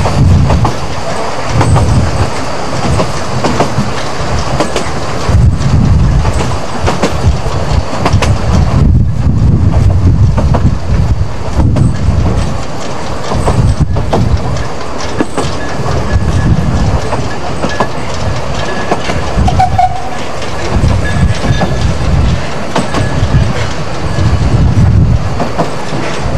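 Vale of Rheidol narrow-gauge train running, heard from a coach window: a rolling rumble with the wheels clicking over rail joints, and a faint thin squeal from the wheels in the second half.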